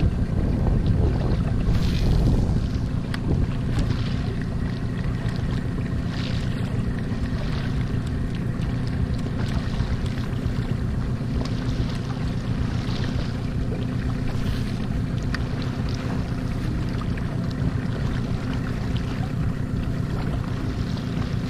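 Rubber dinghy under way on choppy water: a steady low engine hum, with wind buffeting the microphone and water splashing against the inflatable hull.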